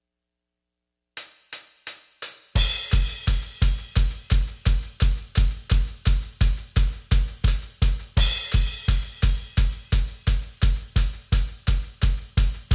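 Drum kit in background music. After about a second of silence come a few separate drum hits, then a steady beat of kick drum with hi-hat and cymbals, a little over two beats a second.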